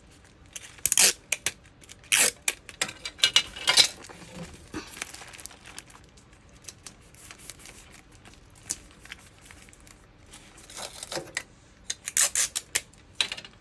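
Short bursts of paper crinkling and tearing, from wax paper and tape being handled while a fruitcake box is wrapped and taped shut. The bursts come in two clusters, early and again near the end.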